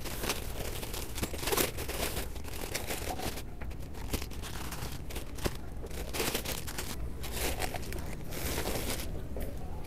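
Plastic packaging crinkling and rustling in irregular bursts as plastic-wrapped packs of toilet paper are pulled and stacked, over a low steady rumble.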